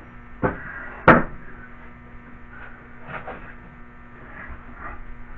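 Two sharp knocks about half a second apart as something is shifted into place, followed by faint knocks and rustles of handling.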